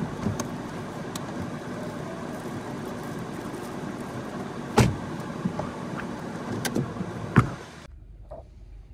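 Car idling with the driver's window down and outdoor noise coming in, as packages go into a drive-up mailbox: two sharp clunks, about five seconds in and again about two and a half seconds later. The sound cuts off abruptly near the end.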